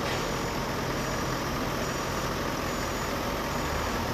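Six-wheeled armoured police vehicle's engine running steadily as it drives.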